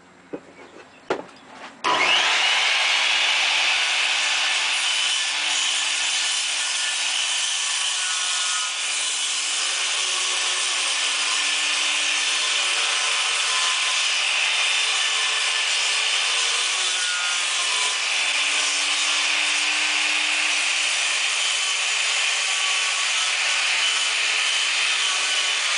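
Handheld circular saw starting up about two seconds in, after a few faint clicks, then running steadily as it cuts through a luan plywood panel.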